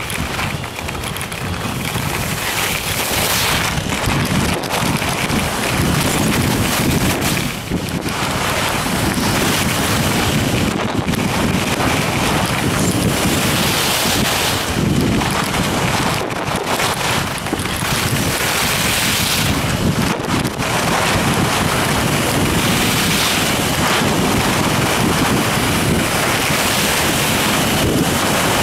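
Wind buffeting the microphone of a camera carried on a fast descent of a ski piste: a loud, steady rush that builds in the first second and holds, with a few brief dips.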